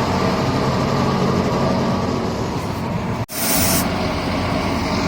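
Atlas 330.1 crane's PTO-driven hydraulic pump running with the truck engine, a steady loud mechanical noise. The owner takes the noise for the pump sucking in air from the hydraulic tank. About three seconds in the sound breaks off for an instant, followed by a short hiss.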